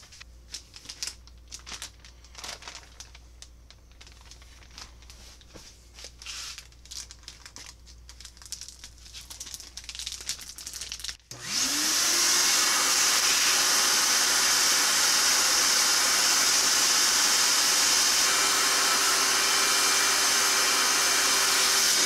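Plastic vacuum storage bag crinkling as it is handled. About eleven seconds in, a vacuum cleaner switches on with a rising whine as its motor spins up, then runs steadily, drawing the air out of the bag through its valve to press it around wet leather.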